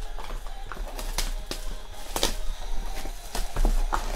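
Plastic shrink-wrap on a sealed Panini Prizm football hobby box crinkling and crackling as fingers rub and press on it, in an irregular string of sharp crackles.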